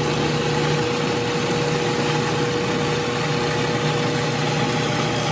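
Electric food processor running steadily, blending fresh herbs and olive oil into a smooth paste; a constant motor hum with a steady tone.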